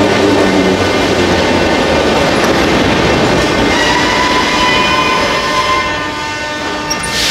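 Moscow Metro train pulling into the platform and braking to a stop. A rolling rumble gives way to high squealing tones from about halfway through, and these fade as the train slows. A short burst of hiss comes just before the end.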